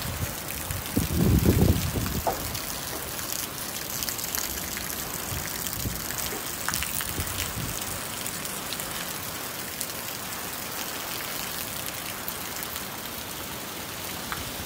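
Heavy storm rain pouring steadily onto a street and trees, with runoff water running across the pavement. A brief low rumble about a second in.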